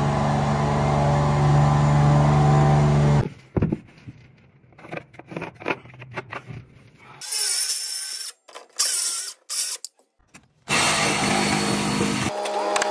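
An electric scissor lift's motor runs with a steady hum for about the first three seconds and stops. Then come scattered knocks and clicks as the wooden corbel is handled and fitted, and several short stop-start stretches of high-pitched tool noise. Near the end a Milwaukee Hackzall one-handed reciprocating saw starts up, cutting wood.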